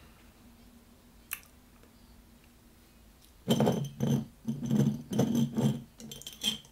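Makeup items clinking and clattering against one another as they are rummaged through, in a string of loud, jumbled bursts starting about halfway in and lasting about three seconds, after a single light click.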